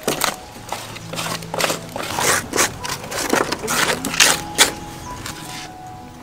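Hand scraping and digging through ash in a metal drum grill, a run of irregular scraping strokes.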